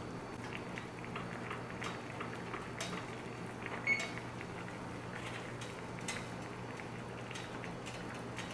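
Jackfruit pieces simmering in water in a stainless steel skillet: faint steady bubbling with scattered small pops, over a low steady hum. Near the end a wooden spoon stirs through the pan.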